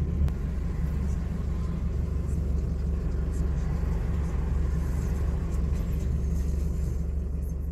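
Low, steady rumble of a car's engine and tyres heard from inside the cab as the vehicle moves slowly forward in queuing traffic.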